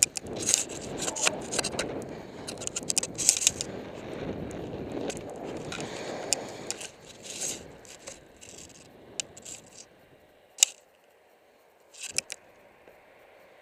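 Skis scraping and chattering over hard, bumpy snow, with many sharp clicks and clacks from the skis and poles. It dies down after about seven seconds, leaving a few separate clicks.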